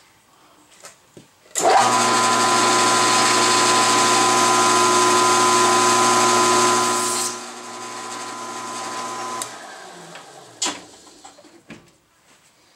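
Milling machine spindle starting suddenly and its end mill cutting a counterbore: a steady motor whine under a loud, gritty cutting noise for about five and a half seconds. The cutting noise then stops, the motor runs on alone for about two seconds, and is switched off and winds down, followed by a sharp click.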